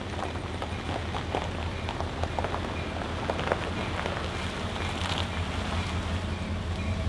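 Pickup truck's tyres rolling slowly over a gravel road, crunching and popping on the stones, over a steady low engine hum.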